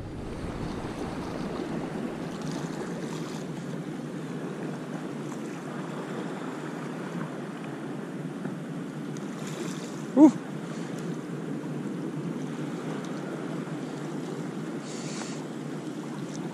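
Steady wash of sea surf breaking on the beach, with a short pitched squeak about ten seconds in.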